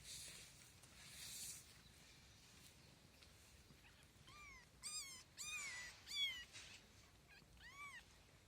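Kittens mewing: about six short, high, arching mews in the second half. Two short hissy noises come near the start.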